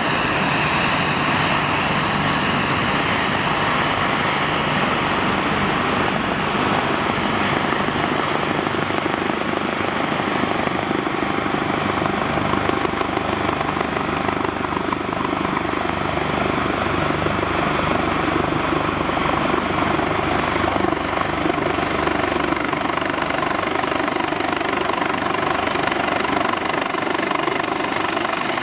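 Twin-engine rescue helicopter approaching overhead to land, its rotor and turbines running steadily.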